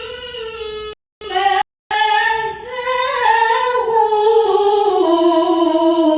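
A woman reciting the Qur'an in the melodic mujawwad style, unaccompanied, drawing one word out in long ornamented held notes. It breaks off twice briefly in the first two seconds, then holds a long note that slides slowly down in pitch.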